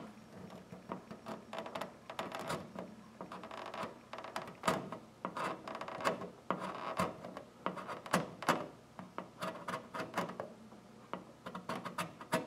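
Steel card scraper drawn in short, repeated strokes across a styrene plastic model hull, a light scraping as it shaves shallow dents into the surface. A sharp click at the very start.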